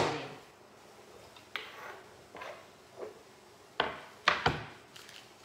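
Chopped cabbage tipped off a wooden chopping board into a frying pan, with a sharp knock of board against pan at the start. A few short, scattered knocks and clunks follow, three sharper ones near the end as the wooden board is handled and set down on the bench.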